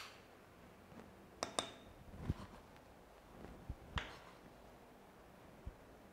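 A handful of light, scattered taps and clicks from a kitchen knife against a wooden cutting board and a stone mortar, as sliced tomato is scooped up and dropped into the mortar, a couple of them with a brief metallic ring.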